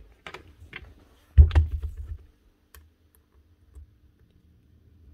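Small steel nibbler parts clicking and tapping as they are handled by hand while a new punch is fitted into the nibbler's piston, with one heavier thump about one and a half seconds in.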